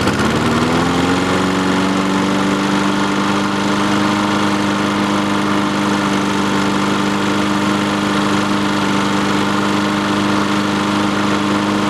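Honda single-cylinder four-stroke engine on a walk-behind lawnmower catching after a pull start, rising in speed over about the first second, then running steadily at a constant speed.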